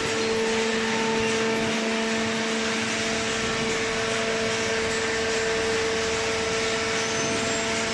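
Hydraulic waste-paper baler running: a steady mechanical hum with a constant droning tone over an even rushing noise.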